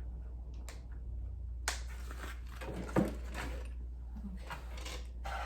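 A few sharp clicks and knocks from small parts being handled, the loudest about three seconds in, over a steady low hum.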